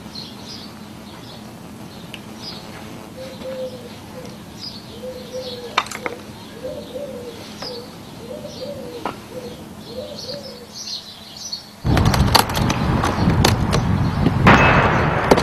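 Birds chirping and a dove cooing in repeated low phrases over quiet outdoor ambience. About twelve seconds in, a sudden loud rush of noise with several sharp knocks takes over.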